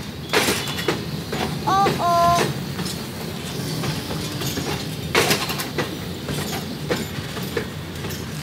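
Covered grain hopper cars of a freight train rolling past. The wheels rumble steadily on the rail, with irregular clacks as they cross rail joints; the loudest clacks come just after the start and about five seconds in.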